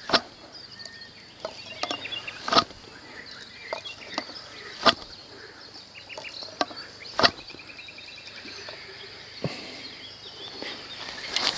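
Boilie throwing stick (cobra) swung again and again to throw bait out, each throw a short sharp swish, the strongest coming about every two and a half seconds with fainter ones between.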